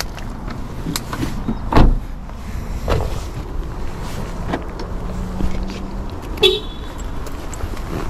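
A car door being shut with a single solid thud about two seconds in, followed by a few lighter knocks, over a steady hiss of falling rain.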